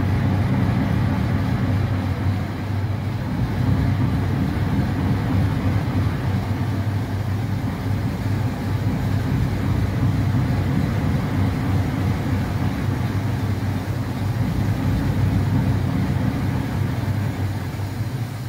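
EMD 16-645E sixteen-cylinder two-stroke diesel prime mover of an SD38-2 locomotive, just fired up and running at idle with a steady, even drone.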